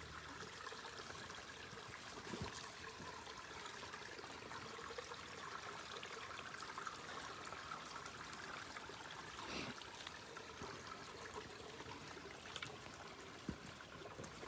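Faint stream water trickling in a steady wash, with a few soft knocks.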